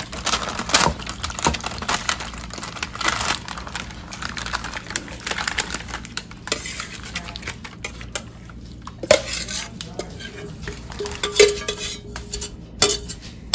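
Metal spoon scraping and clinking against the inside of a metal saucepan as a mixture of melted lard, cracklings and sunflower seeds is scraped out onto paper, in irregular scrapes and knocks.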